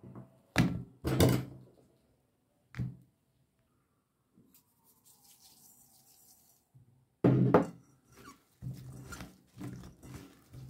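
Sliced zucchini dropped into a bowl in a few loud clattering thuds, then a faint hiss of salt sprinkled over the slices, then the wet slices tossed and rubbed together by hand in the bowl with soft repeated clatters.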